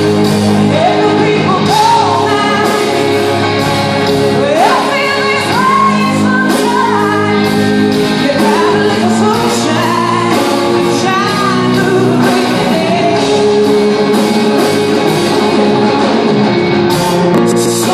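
Live rock band with piano, electric guitars, bass and drums playing, and a woman singing long sliding notes over it, in a large echoing hall.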